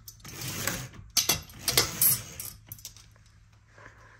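Dual-layer (zebra) fabric roller blind being handled and opened by hand: fabric rubbing and sliding in several strokes, with a few sharp clicks, going quieter in the last second or so.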